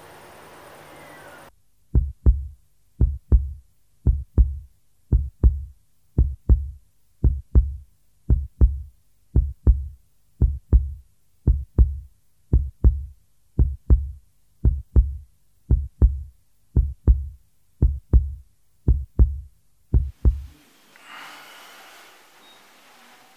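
Heartbeat sound effect: deep double thumps (lub-dub), about one beat a second, starting about two seconds in and stopping shortly before the end.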